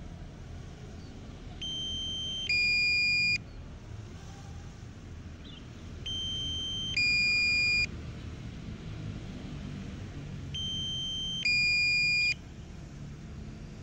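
Electronic two-tone warning beeps: a higher tone for just under a second, then a louder lower tone for just under a second. The pair repeats about every four and a half seconds, three times, over a low steady background noise.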